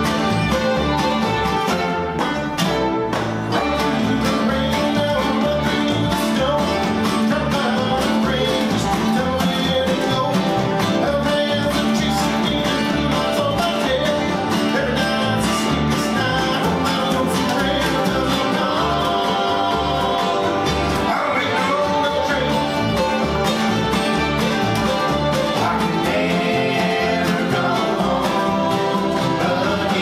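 Bluegrass band playing: banjo, acoustic guitars, upright bass and fiddle.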